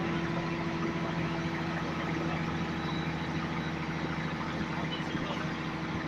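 Scania N113 bus's rear-mounted 11-litre six-cylinder diesel engine running steadily with a constant, unchanging hum, heard from inside the saloon.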